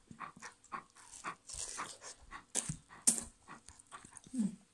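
Bernese mountain dog panting open-mouthed in short, uneven, wet breaths.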